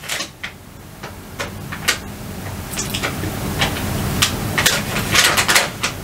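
Rustling and scattered light clicks as a piece of clothing and its tag or receipt are handled, with the loudest rustling about five seconds in.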